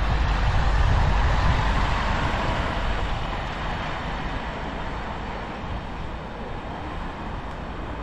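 Wind rushing over the microphone and road noise from a moving bicycle, a steady rumbling hiss that swells in the first couple of seconds and then eases off.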